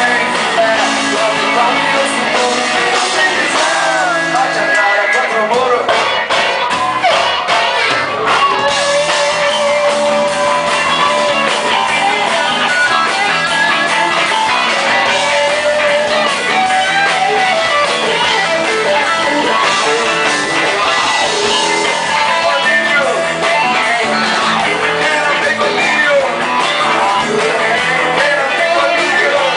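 Live band playing loud, upbeat rock music with guitars to the fore, drums and bass underneath, and some singing.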